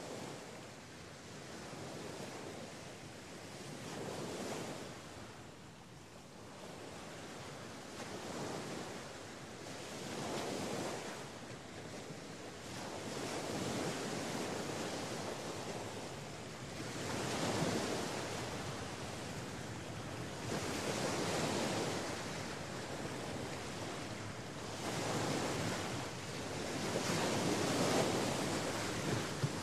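Sea surf: waves breaking and washing ashore, a rushing noise that swells and fades every three to four seconds.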